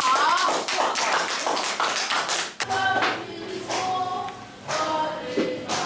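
A rapid clatter of taps for about two and a half seconds, cut off abruptly and followed by music with held notes.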